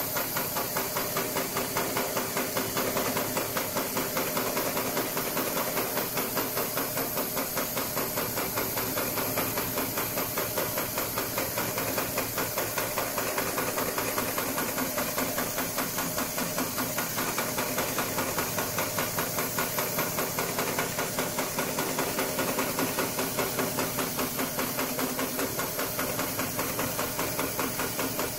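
Extra-heavy-duty programmable pattern sewing machine stitching through five plies of 4 mm nylon webbing sling. Its needle strokes make a fast, even mechanical knocking over a steady hiss, with no pause.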